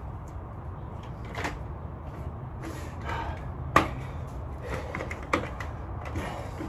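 Ab wheel rollouts on the floor: scattered knocks and clicks every second or so, the loudest nearly four seconds in, over a steady low hum.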